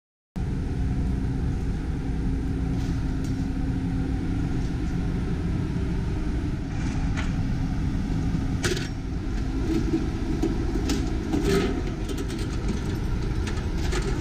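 Steady low rumble, with scattered short metallic clinks of linked machine-gun cartridges being handled and laid out, thickest in the second half.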